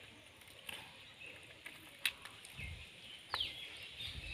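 Faint outdoor ambience: small birds chirping now and then, one call falling in pitch about three seconds in. A few sharp clicks and a soft low rumble late on.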